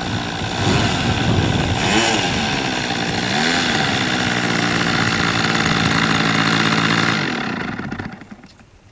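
Small model-airplane engine of an RC plane taxiing, its pitch rising and falling a few times, then running steady before it cuts out about seven seconds in and dies away.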